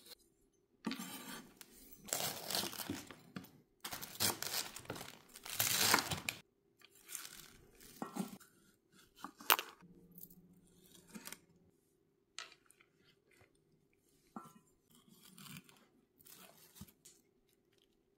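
Kitchen knife slicing through red capsicum and tomato on a wooden chopping board: a dense crunchy cutting noise for the first several seconds, then scattered sharp knocks of the blade on the board.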